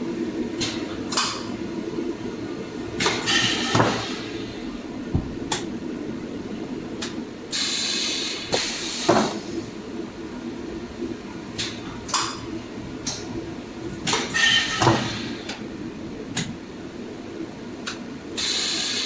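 High-frequency plastic welding machine at work sealing blister packs: repeated sharp clacks and knocks of the press and handled plastic, several short hisses of air, and a steady hum underneath.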